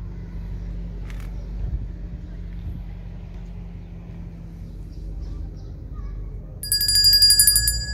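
Steady low rumble of street traffic, then near the end a loud, rapid, high-pitched electronic chiming lasting about a second.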